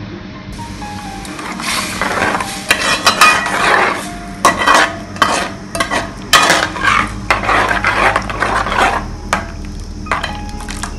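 A metal spoon stirring a thin curry gravy in a metal pot, clinking and scraping against the pot's side and bottom in quick, uneven strokes that begin about a second and a half in.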